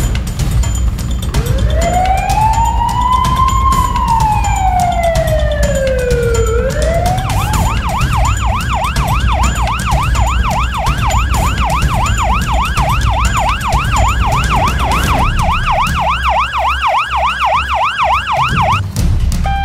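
A siren wails once, rising slowly and falling, then switches about seven seconds in to a fast warbling yelp, about three cycles a second, which stops near the end. Beneath it the diesel engine of a two-wheel walking tractor runs steadily.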